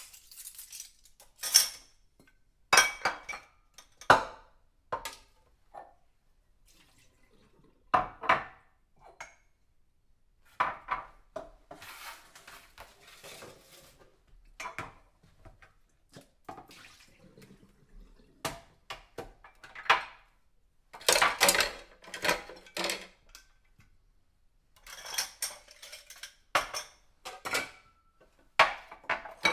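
Dishes being washed by hand: plates, cutlery and crockery clinking and clattering against each other at irregular intervals, with some splashing water.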